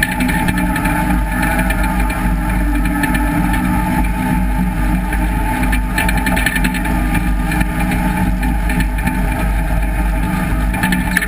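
John Deere 850J WT crawler dozer's six-cylinder diesel engine running steadily under load as it pushes dirt, with a fast rattle from the moving steel tracks over it.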